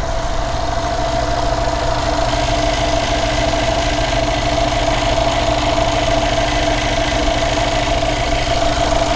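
Mercedes-AMG M157 twin-turbo V8 idling steadily, with a steady tone over the engine note, during a leak check after a coolant repair.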